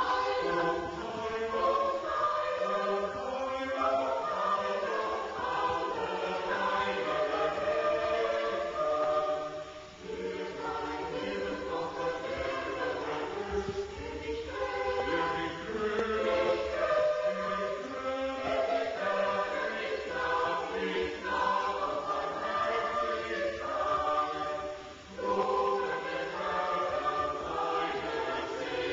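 Mixed choir of men's and women's voices singing together in long sustained phrases, with short breaks between phrases about ten seconds in and again near the end.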